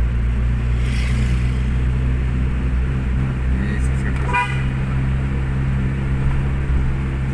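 Steady low engine and road hum inside a moving vehicle's cabin, with a short car horn toot about four seconds in.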